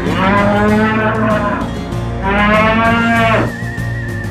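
Two long, angry bull-like bellows, each rising and then falling in pitch, voicing an annoyed combine harvester character, over background music.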